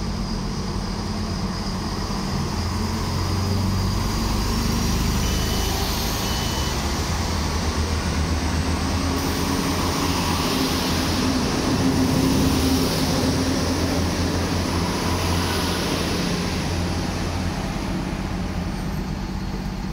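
HLB diesel railcar (Alstom Coradia LINT) running its diesel engines at the platform, a steady low drone with a few short beeps about five seconds in. About ten seconds in the engine note rises and grows louder as the train pulls away.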